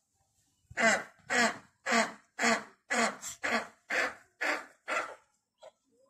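A large eagle giving a run of about nine harsh, barking calls, about two a second, each call dropping in pitch.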